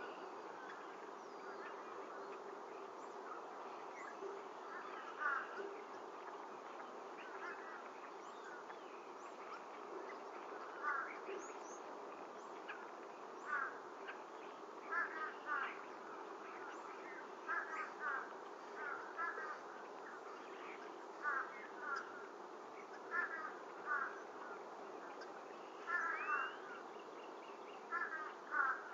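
Osprey calling: short, sharp chirps, often in twos and threes, coming more often toward the end, over a steady background hiss.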